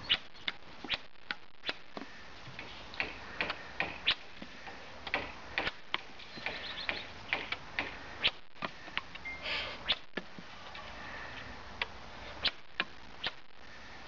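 Irregular sharp clicks and light knocks, roughly one or two a second, as pieces of cut vine and a light shashka are handled.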